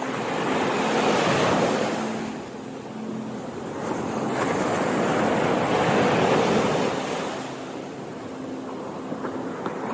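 Sea waves washing onto the shore: the rush swells and falls back twice, each surge lasting a few seconds.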